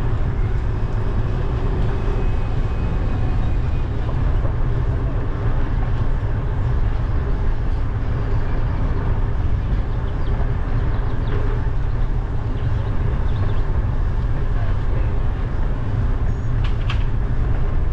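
Wind rumbling on the microphone of a GoPro Hero10 Black riding on a moving bicycle, a steady low rumble with no break. A brief high-pitched sound comes near the end.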